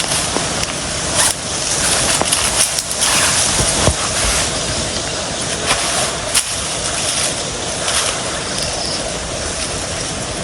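Steady rushing noise with scattered light clicks and knocks.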